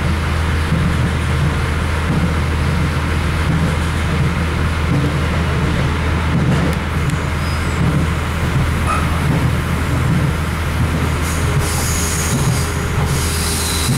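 Cabin sound of an RA2 diesel railcar under way: the diesel engine's steady low drone under the rumble of wheels on rail, with faint high-pitched wheel squeal coming in near the end.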